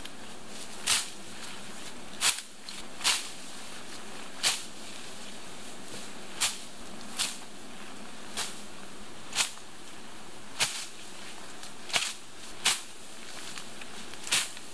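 A sling blade swung through tall grass. About a dozen sharp swishes land roughly a second apart, unevenly spaced, as the blade cuts the stems.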